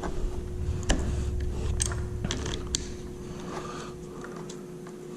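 Scattered small clicks and taps of metal handguard parts and hand tools being handled while the handguard mounts are fitted, most of them in the first three seconds. A steady hum runs underneath.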